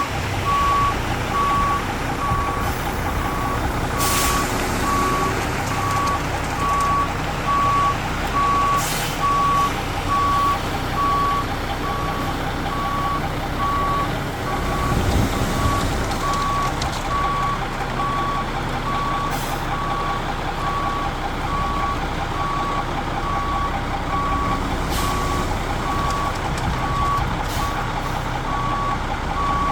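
Cement mixer truck reversing: its backup alarm beeps steadily over the diesel engine running, with a few brief clanks or hisses in between.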